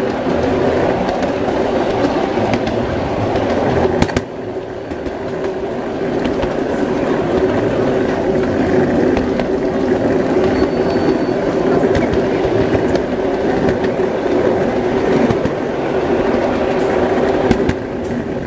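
Model Alishan steam train running along its track, heard from on board: a steady rumble and clatter of wheels on the rails with a constant hum.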